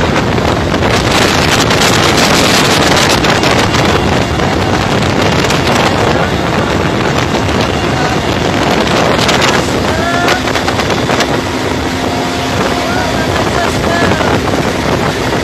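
Helicopter in flight heard from inside the cabin: a loud, steady din of engine and rotor mixed with rushing wind.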